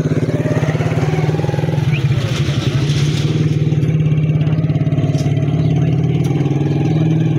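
A small engine running steadily close by, with a fast, even pulse and no revving.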